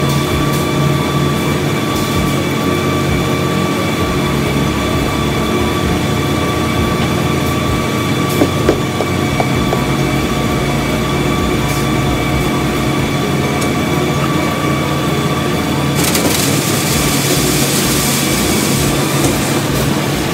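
Concrete plant's tilting drum mixer and plant machinery running with a steady hum and several constant whining tones, with a few knocks near the middle. About three-quarters of the way in, a rushing hiss sets in as the drum tips and dumps fresh concrete into the truck box below.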